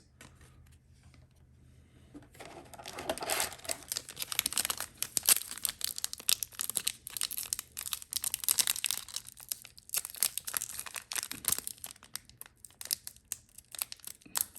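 Wrapper of an Upper Deck hockey card pack crinkling and tearing as it is worked open by hand, its glued seams hard to pull apart. The crinkling starts about two seconds in and carries on with many sharp crackles.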